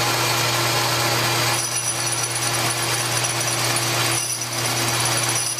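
Metal lathe running with a steady motor hum, turning a cast iron live steam locomotive wheel as the cutting tool is brought in to true the face of the flange. A thin, high, steady whine joins about a second and a half in.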